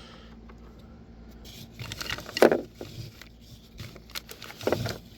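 A few light clicks, knocks and scrapes of small parts and hand tools being handled on an outboard motor's primer knob assembly. The loudest knock comes about halfway through, with another near the end.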